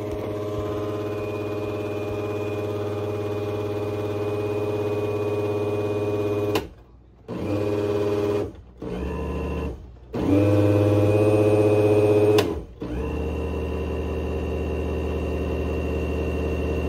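Electric blender motor running with a steady whine, switched off and restarted about four times, each run at a slightly different speed.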